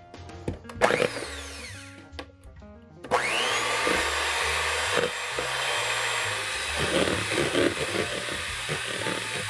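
Electric mixer switched on about three seconds in, its pitch sweeping up as it gets to speed, then running steadily as its beaters whip egg white and water to a froth in a bowl.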